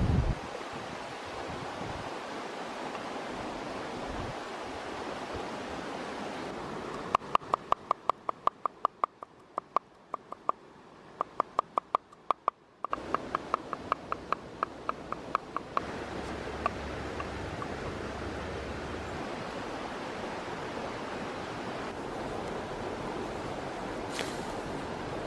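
Large knife chopping garlic on a wooden cutting board: a quick, even run of sharp chops, about three or four a second, each with a short metallic ring, lasting several seconds in the middle. A steady outdoor hiss runs underneath.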